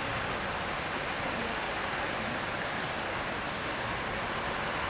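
Steady rushing of water, an even hiss-like noise with nothing else standing out.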